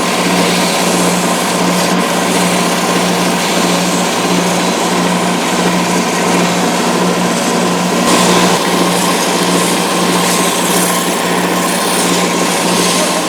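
Wood lathe motor running at a steady speed, with a steady hum, while a hand tool works against the spinning wood and adds a continuous hiss.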